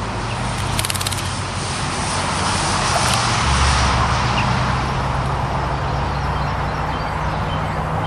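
Road traffic: a passing motor vehicle's steady engine and tyre noise, swelling about halfway through. About a second in, there is a brief splash from a bird bathing in a birdbath.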